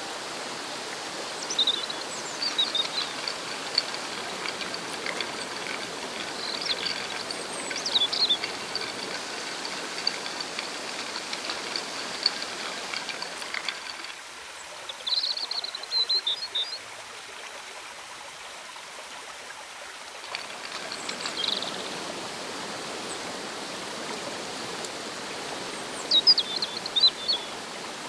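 Shallow rocky river rushing steadily, with small birds chirping at intervals over it. The water noise drops lower and quieter for several seconds in the middle, then comes back.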